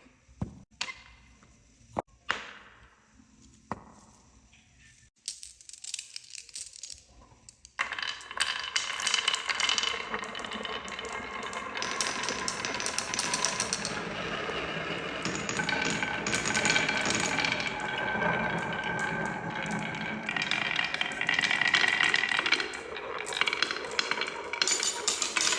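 Marbles clacking on a wooden marble run: a few separate clicks at first, then from about eight seconds in a dense, continuous rattle of many marbles rolling and knocking together down the track.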